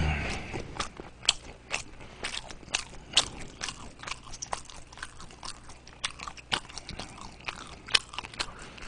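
A person chewing a mouthful of meat-filled steamed dumpling close to the microphone, with irregular wet smacking clicks.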